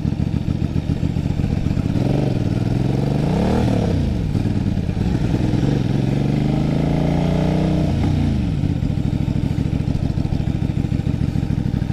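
Kasinski Mirage 250's V-twin engine running on the road, heard from the handlebars. Its pitch climbs from about two seconds in, dips just before four seconds, climbs again, and falls away after about eight seconds before running steadily.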